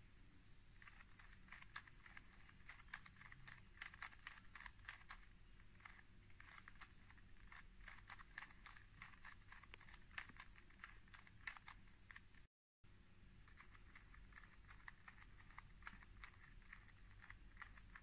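Faint, rapid, irregular plastic clicking of a 3x3 puzzle cube's layers being turned by hand in quick succession. The sound briefly cuts out about two-thirds of the way through.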